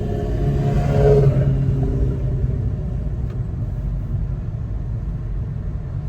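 Car engine and road rumble, steady and low, with a brief swell in engine note about a second in.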